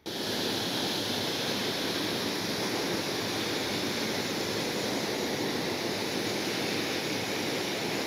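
Small waterfall: a steady rush of falling water.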